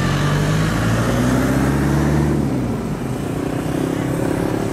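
A motor vehicle's engine running as it passes close by, loudest about two seconds in and then fading. A second, higher-pitched engine is heard more faintly near the end.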